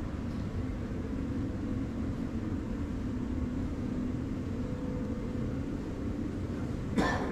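Steady drone of malt roasting plant machinery running: fans, ducting and conveyors, with a low hum and a faint steady tone. About seven seconds in, a single sharp metallic knock.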